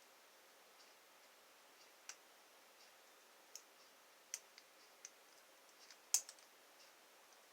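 Lock pick and tension tool working inside a lock, giving a handful of faint, irregular small clicks as the pins are set, the loudest about six seconds in.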